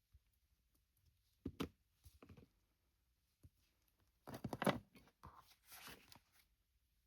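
Faint rustling and tearing as scraps of fabric are handled, in several short bursts; the loudest comes about four and a half seconds in.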